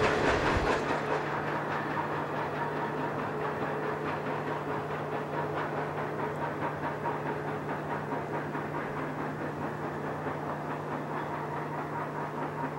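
A CSX double-stack container freight train's last cars rolling away, with a steady clatter of steel wheels over the rails under a steady low drone. It eases off over the first couple of seconds, then holds.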